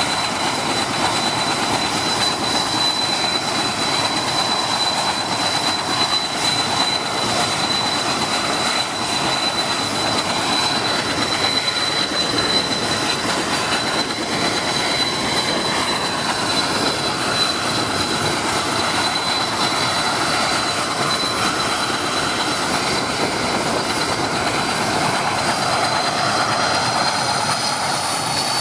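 Mil Mi-8 helicopter running on the ground, its twin turboshaft engines giving a steady high whine over the dense noise of the turning main rotor. Near the end the whine rises in pitch.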